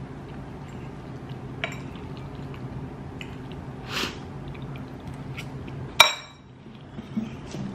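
Cutlery clinking against a dish during a meal: scattered small taps and one sharp, ringing clink about six seconds in, over a low steady hum.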